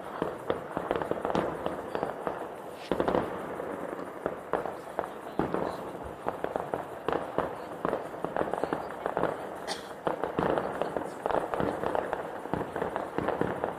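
Fireworks going off in rapid, dense succession: many overlapping bangs and crackles, with a heavier boom about three seconds in.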